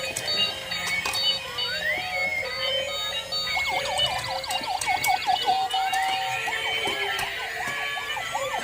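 Electronic siren-like warbling and beeping, with several tones sounding at once. There are short rising glides, a fast warble from about three and a half seconds in, then slower warbling sweeps near the end.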